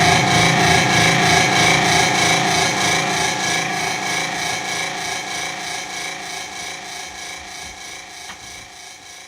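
Electric guitar played through a custom effects patch with looping: a dense, rasping drone of layered sustained tones with a fast regular pulse, fading out steadily.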